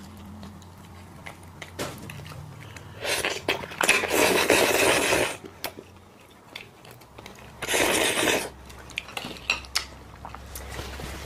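Crab shell cracking and crackling as it is pulled apart by hand and sucked at the mouth: two loud spells, one about two seconds long and a shorter one about a second long, with light clicks of shell in between.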